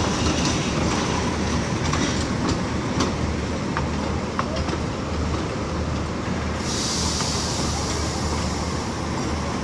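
Matheran narrow-gauge toy train's passenger coaches rolling past close by, with a steady low rumble and sharp wheel clicks over the rail joints. A steady hiss sets in about two-thirds of the way through.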